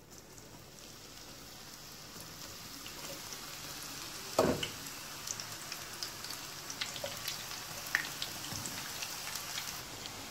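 Cornflour-coated soya chunks frying in hot oil in a non-stick pan: a steady sizzle dotted with crackles and pops that grows louder as more pieces go into the oil. A single dull knock comes about four and a half seconds in.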